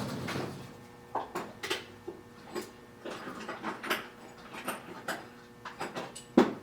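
Scattered light clinks and knocks of small metal tooling being handled and set down on the mill, with a sharper knock near the end.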